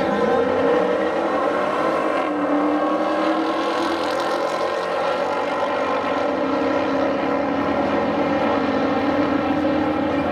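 Two muscle cars' engines at full throttle as they launch and run down a quarter-mile drag strip, a loud, steady engine note whose pitch pattern changes abruptly about two seconds in.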